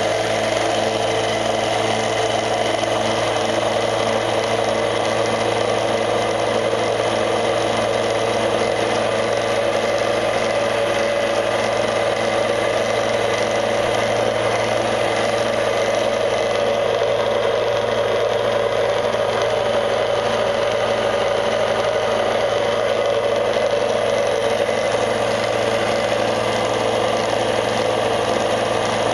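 Central Machinery 1x30 inch belt sander running steadily: a motor hum with the whir of the belt over its rollers. The noise is a little bit noisy, but even.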